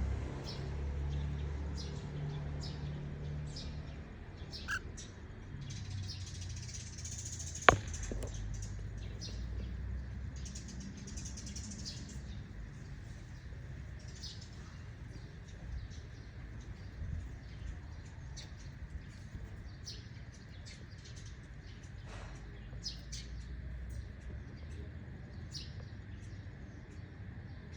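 Cockatiels chirping: many short, high chirps scattered throughout, with a single sharp click about eight seconds in.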